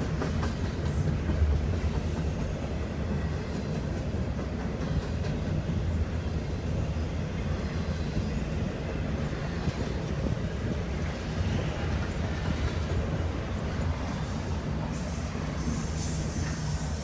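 Double-stack intermodal freight train rolling past close by, its container well cars making a steady low rumble as the wheels run over the rails, heard from inside a vehicle.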